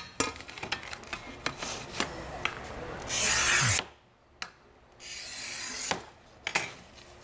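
Magic Saw scraping across a glazed ceramic tile in two raspy strokes, the first about three seconds in and louder, the second a second later and softer, with light clicks and taps from handling the tile.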